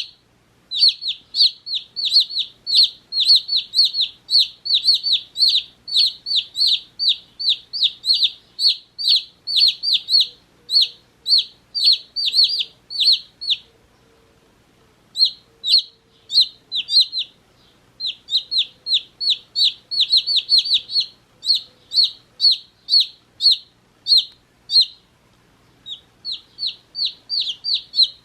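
Day-old chicks peeping: a rapid run of short, high chirps, each dropping in pitch, several a second, with a few brief breaks.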